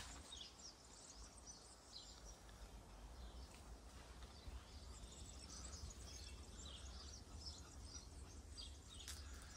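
Faint chirping of small birds, many short calls scattered throughout, over a steady low rumble.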